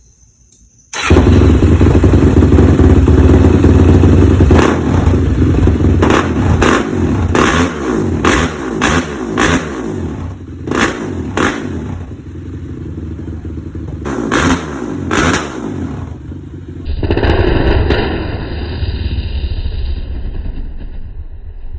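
Suzuki LTR450 quad's single-cylinder four-stroke engine running through a freshly fitted Yoshimura RS5 exhaust. It comes in loud about a second in and is revved in a long run of quick throttle blips, the revs falling back after each. Near the end the sound changes abruptly to a duller, steadier engine running near idle.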